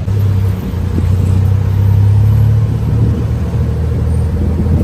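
Tuk tuk ride: the three-wheeler's engine running with a steady low rumble.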